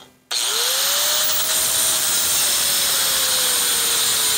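Corded electric angle grinder switched on about a third of a second in, its whine rising as it spins up, then running steadily while the disc cuts into the steel shell of a catalytic converter. Its pitch sags slowly as the disc bites into the metal.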